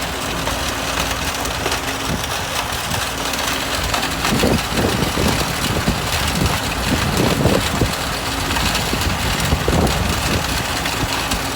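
Stone crushing machine running with a steady drone, and from about four seconds in irregular knocking and cracking as stones go through it.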